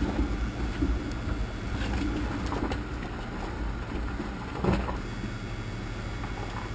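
Off-road vehicle crawling over a rocky trail: a steady low engine rumble with scattered knocks of tyres and suspension on rocks, the loudest knock about two thirds of the way through.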